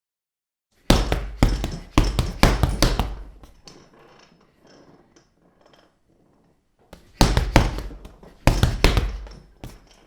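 Boxing punch sound effects: two flurries of sharp, heavy hits, the first starting about a second in and the second about six seconds later, each hit dying away quickly.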